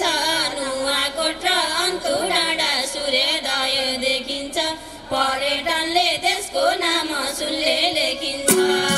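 A woman singing a Nepali Teej folk song unaccompanied, her melody wavering up and down. Near the end a madal drum and the band come in with a sharp strike.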